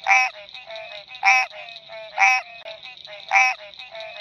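American green treefrog calling: a short, nasal, honking note repeated about once a second, four calls in all, over a fainter background chorus.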